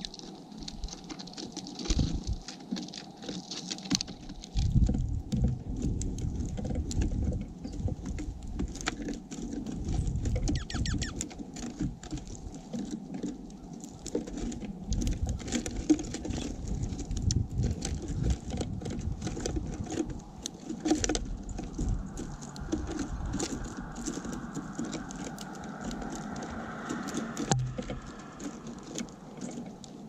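Small seed-eating birds (house finches, house sparrows, dark-eyed juncos) pecking and rummaging through mixed sunflower seed and cracked corn on a wooden platform feeder close to the microphone. The result is an irregular patter of seed clicks and rattles, with low thuds as birds hop and land on the tray.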